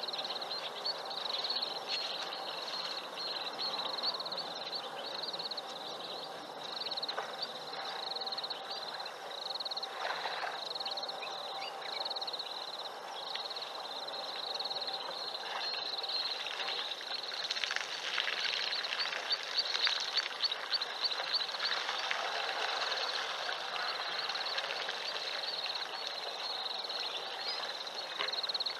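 Steady high-pitched trilling chorus of night insects, pulsing rapidly, over outdoor background noise, with a louder spell of noise about two-thirds of the way through.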